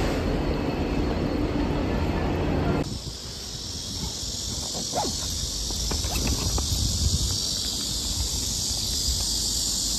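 Wheels of a rolling pet carrier rumbling over paving stones, cutting off suddenly about three seconds in. Then a steady high hiss, with a few short whines from the dogs in the carrier.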